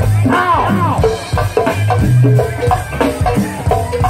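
Live go-go band playing through a PA: drum kit and hand percussion keep a steady beat over a bass line, with pitched instrument or vocal lines on top.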